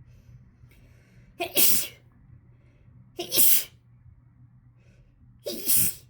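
A person's harsh sneezing fit set off by chhinkni, a sneeze-inducing herbal powder: three sneezes about two seconds apart, each a short catch followed by the loud burst.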